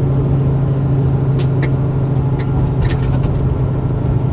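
Semi truck's diesel engine running steadily, heard from inside the cab on the road as a constant low drone, with a few scattered light clicks.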